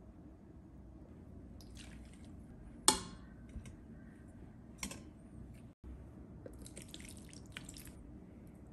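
Metal tongs clinking against a stainless steel pot and steamer basket as steamed pork pieces are lifted out. There is one sharp, ringing clank about three seconds in, a lighter clink near five seconds, and soft clicks and rustles between.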